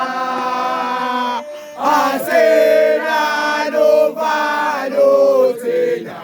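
A group of voices singing a chanted song: one long held note that breaks off about a second and a half in, then the singing picks up again with the melody moving up and down.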